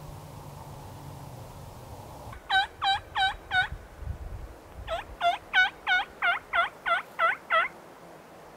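Wild turkey yelping: a run of evenly spaced yelps, four, then after a pause of about a second nine more, about three a second.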